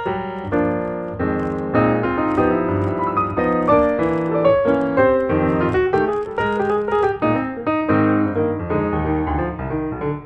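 Background piano music, a fast run of struck notes without pause.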